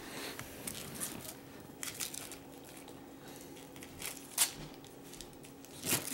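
Wrapping paper crinkling and tearing in short bursts of rustling as a child unwraps a small present, with the loudest rustles about four and a half seconds in and near the end.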